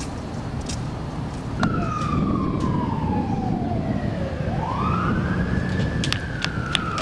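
A siren wailing over steady low background noise. Its pitch slides slowly down, then swoops up again and starts another slow fall. A run of sharp clicks starts near the end.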